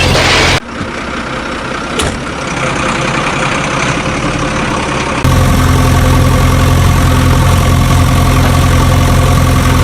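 Vehicle engine running steadily. About half a second in it cuts abruptly to a quieter stretch with a single click, and a little after five seconds it jumps back to the loud, steady running.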